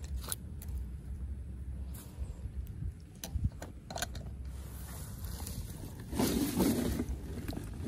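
Low wind rumble on the microphone with scattered faint clicks and handling noises, louder for about a second near the end.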